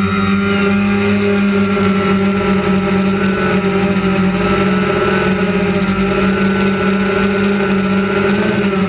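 Motors and propellers of a small remote-controlled aircraft carrying the camera, a steady droning whine whose pitch wavers slightly near the end.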